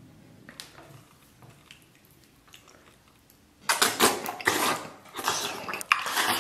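Loud, close-up eating sounds beginning about three and a half seconds in: a man biting and chewing mouthfuls of braised pork knuckle with rice, in quick wet bursts. Before that, only a few faint clicks.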